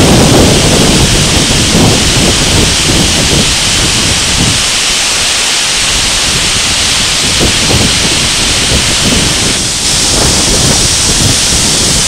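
A tall waterfall in heavy flow cascading over stepped rock: a loud, steady rush of falling water, with gusty wind buffeting the microphone.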